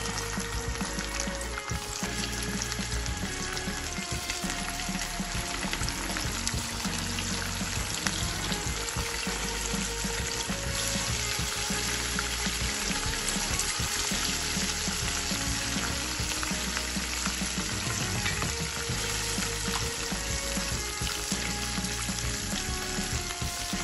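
Rohu fish pieces deep-frying in hot mustard oil in a kadai: a steady, dense sizzle and crackle of bubbling oil.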